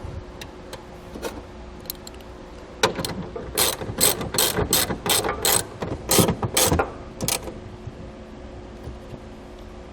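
Socket ratchet clicking in short uneven bursts as a 10 mm bolt is tightened down on a factory ground point, clamping a wiring harness's ground ring terminal; the clicking runs from about three seconds in to about seven.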